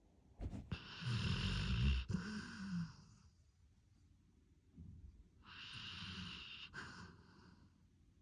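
Snoring: two slow snoring breaths, each a low rattle with a breathy hiss. The first, about half a second in, is the louder and longer; the second, softer one comes about five seconds in.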